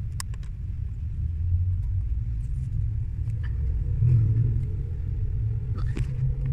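Steady low rumble inside a Perodua Axia's cabin, with a few light clicks as a blade fuse is pushed into the fuse box: one pair of clicks at the start and another click about six seconds in.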